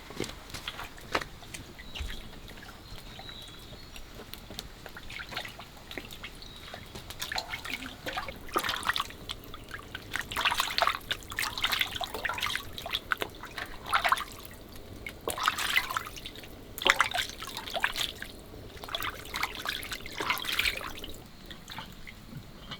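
Water splashing and trickling in irregular bursts, heaviest through the middle of the stretch, from food being washed by hand in water.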